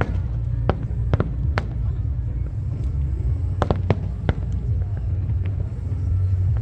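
Fireworks going off: sharp bangs and crackles, several in quick succession around the middle, over a steady low rumble.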